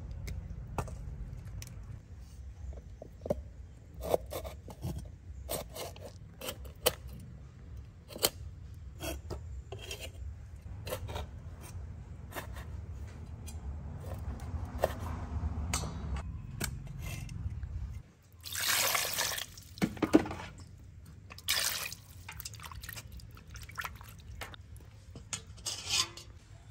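Food prep on raw chicken feet: a knife knocking and clicking on a wooden chopping board as the claws are cut off, and the feet handled in a wet steel bowl. A few short rushes of splashing water come in the second half, the loudest sounds, and a low background hum stops abruptly about two-thirds through.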